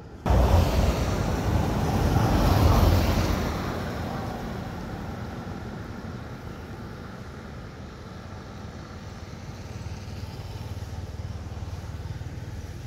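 A motor vehicle passing close by. It comes in abruptly, is loudest about two to three seconds in, then fades into a steady background hum of traffic.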